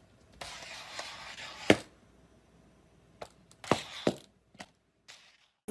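A cat scrambling across a tiled floor: a series of sharp knocks and thumps with scuffling between them, the loudest thump about a second and a half in.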